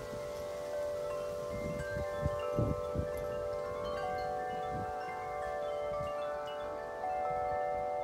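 Wind chime ringing in the wind, several notes struck again and again so they overlap and hang on. Gusts of wind rumble on the microphone a few times between about one and a half and three seconds in.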